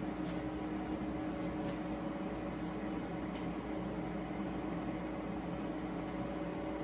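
Steady hum of a running kitchen appliance or fan motor, even in level, with a few faint light clicks.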